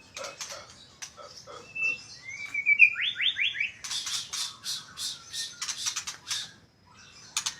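Murai batu (white-rumped shama) singing: a short rising whistle, then a quick run of falling whistled notes, then a string of harsh rasping calls.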